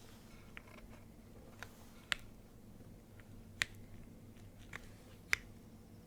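Scattered single keystrokes on a Moment mechanical keyboard with lubed, filmed Cherry MX Black linear switches, GMK keycaps and a polypropylene plate. There are about seven separate presses, not continuous typing. Three of them, spaced about a second and a half apart, are sharper and louder than the rest.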